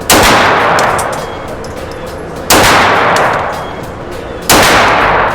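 Three pistol shots spaced about two seconds apart, each a sharp, loud crack followed by a long echoing decay, typical of an indoor shooting range.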